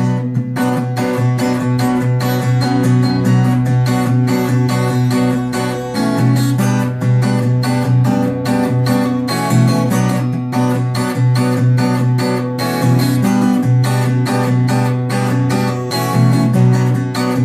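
Acoustic guitar strummed in a steady rhythm of chords, an instrumental passage between sung lines with no voice.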